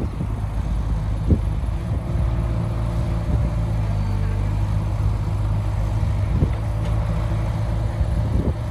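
Diesel engine of heavy earthmoving machinery running steadily with a deep hum, with a few short knocks over it.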